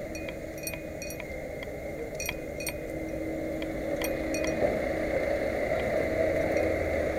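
Light metallic clinking, two or three sharp ringing ticks a second that thin out about halfway through, over a steady low hum as a power wheelchair rolls along.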